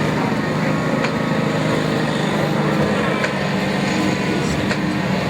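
Boat engine running steadily in a low, even drone, with a few short sharp clicks over it.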